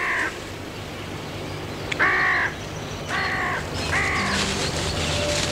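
Crows cawing: three harsh caws about a second apart, starting about two seconds in.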